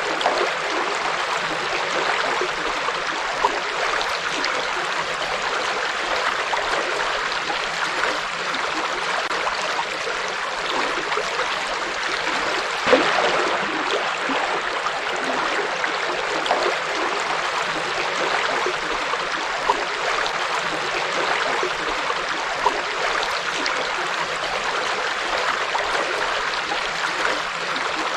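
Forest river flowing steadily over stones, a continuous rush of water with small gurgles and splashes.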